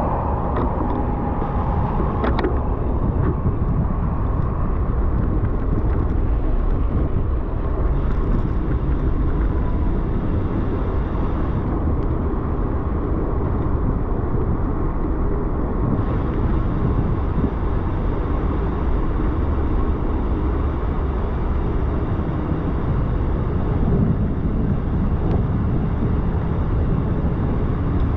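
Steady rushing wind and road noise from riding slowly along wet city streets, with a short click about two seconds in.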